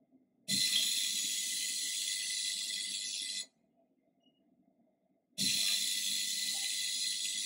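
Ultrasonic probe sonicator (750 W) pulsing in water: a loud, steady high hiss with a low hum beneath runs for about three seconds, stops for about two, then starts again, each pulse opening with a short low thump. The three-seconds-on, two-seconds-off rhythm is the sonicator's pulse mode.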